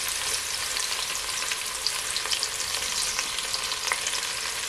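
Sliced onion and sweet pepper sizzling in hot oil in a pot, a steady crackle with scattered small pops.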